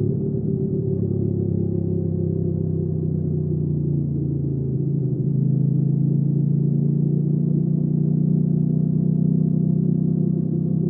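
Hyosung GV300S Aquila cruiser's V-twin engine running steadily on the move, its exhaust holding an even pitch and getting a little louder about halfway through.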